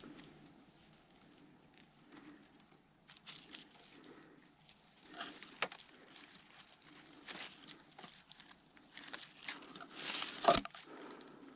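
Rustling and handling noises with scattered clicks as groundbait is being made up by hand, then a sharp thump about ten and a half seconds in. A steady high-pitched whine runs underneath throughout.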